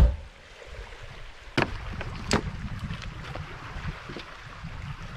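Small waves washing onto a pebble shore, with wind rumbling on the microphone. A loud low thump opens it, and two sharp knocks come about a second and a half and two and a half seconds in.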